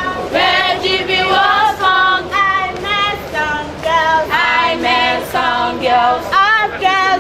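A group of voices singing, the melody moving in short phrases without pause.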